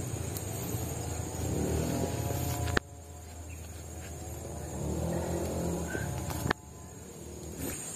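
Insects trilling steadily in the background over a low rumble that swells and fades twice. Two sharp clicks, about three and six and a half seconds in, each cut the rumble off suddenly.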